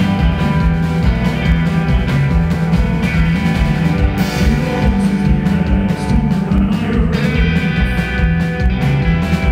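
Live country-rock band playing an instrumental passage, with electric guitars over drums and bass keeping a steady beat, heard as a loud audience recording.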